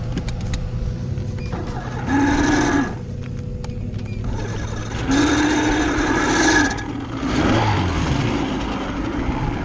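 A low engine hum runs throughout, broken twice by a steady whine from a small electric motor: briefly about two seconds in, then for about a second and a half from about five seconds.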